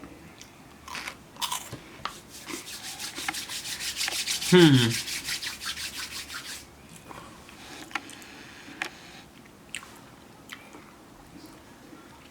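Snack wrapper crinkling for a few seconds as another wafer is pulled out, with a short falling 'mmm' hum of the voice in the middle, then crisp crunches of a wafer cookie being chewed, about one a second.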